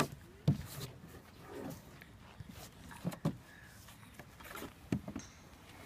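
Scattered knocks and thumps of a small child's hands and feet on a playground slide structure as she climbs up to the top.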